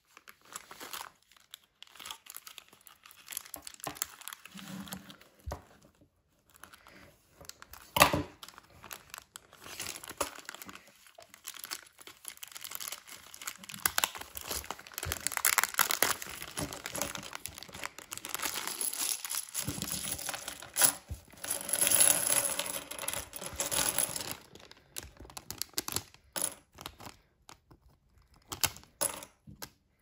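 Clear plastic bag of small Lego bricks being cut open with scissors and crinkled in the hands, in irregular crackling spells, with one sharp click about eight seconds in. Near the end, sparse separate clicks as loose plastic pieces tumble onto the table.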